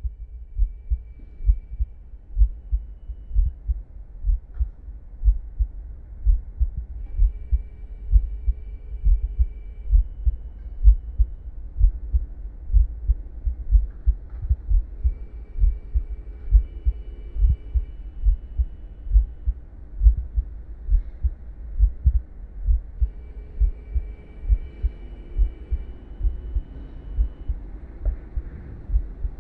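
Deep, heartbeat-like thumps repeating about twice a second, not quite evenly. Faint high held tones come and go above them.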